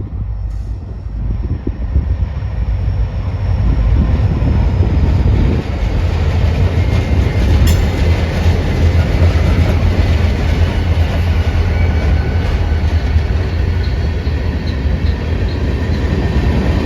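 CSX freight train rolling past: a deep rumble that builds over the first few seconds and then holds steady.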